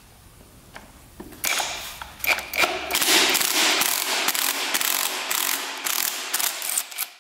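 Cordless impact wrench hammering as it spins the clutch lock nut off a Honda Z50's 50cc engine through a special slotted tool. It starts about a second and a half in and rattles on loudly, with uneven surges, until just before the end.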